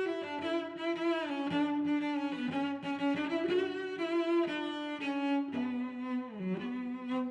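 Background music: bowed strings, with a low cello-like line holding and changing notes.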